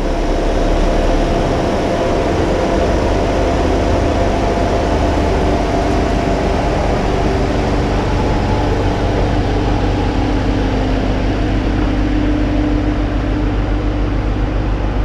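Ford Taurus SHO's 3.5 L EcoBoost twin-turbo V6 running steadily.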